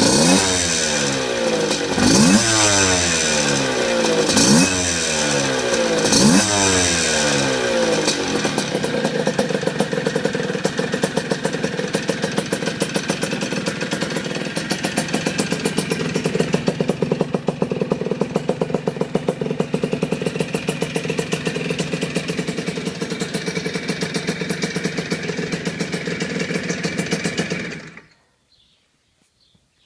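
Puch Cobra two-stroke single-cylinder motorcycle engine blipped four times, each rev rising and falling back, then settling into a steady idle. About two seconds before the end the engine sound stops abruptly.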